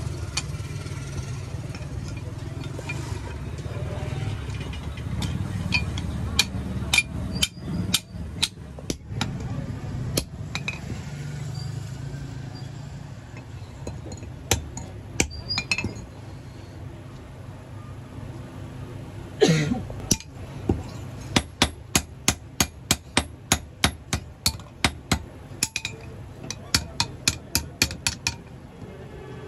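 Hand hammer striking an axe head on a steel anvil block, with metallic clinks. The blows are scattered at first, then settle into a steady run of about two to three strikes a second in the last third. A short, loud falling squeal comes about two-thirds of the way through, over a low background rumble.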